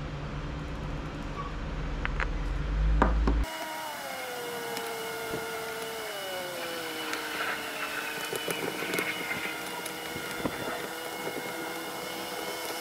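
Light clicks and scraping as a screwdriver and small parts are worked on a Stihl 015L chainsaw's housing, over a steady low hum that cuts off about three and a half seconds in. After the cut, faint background tones slide down in pitch and then hold steady under the handling noises.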